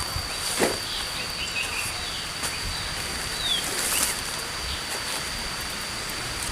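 Tropical forest ambience: a steady high-pitched insect tone, a few short bird chirps, and a single knock about half a second in.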